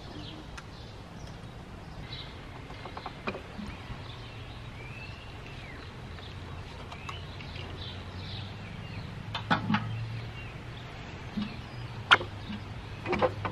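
A few sharp metallic clicks and clinks as the machine's mechanism is taken apart by hand, the loudest about twelve seconds in and a cluster near the end. Birds call now and then over a low steady hum.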